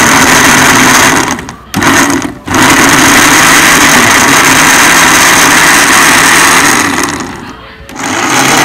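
Electric mixer grinder (mixie) running at full speed, grinding torn paratha pieces into coarse crumbs. It is loud and steady, cuts out briefly twice about one and a half and two and a half seconds in, runs again, then winds down about a second before the end and starts back up briefly.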